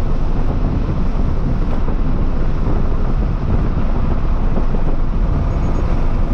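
A 2023 Toyota GR86's 2.4-litre flat-four engine and GR exhaust running at track speed, mixed with steady road and wind noise, heard from inside the cabin.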